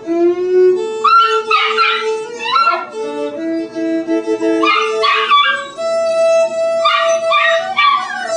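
Akita puppy howling and yipping along to a fiddle playing long held notes. The puppy's high-pitched howls come in three bouts over the fiddle.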